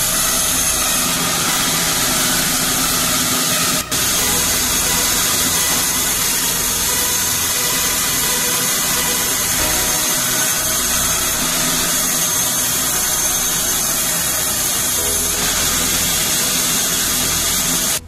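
Large vertical band saw running steadily while a bark-edged wooden slab is fed through its blade and ripped lengthwise.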